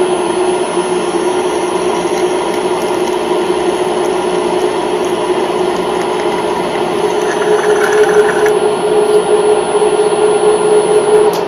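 Cincinnati Toolmaster milling machine's spindle running steadily as a twist drill cuts a hole through a thin metal plate, with a steady motor hum. It grows a little louder over the last few seconds.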